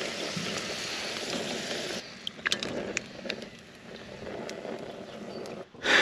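Breaded cicadas frying in hot oil in a frying pan, a steady sizzle. About two seconds in the sizzle cuts off, and a few sharp clicks and taps follow.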